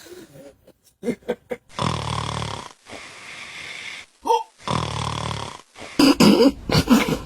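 Sleeping cat snoring: two rough snores about three seconds apart.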